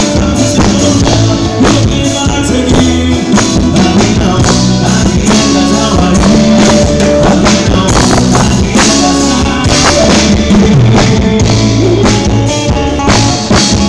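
A live band playing loud through a stage PA: a male lead singer over electric guitars, keyboard, drum kit and hand percussion, with a steady beat.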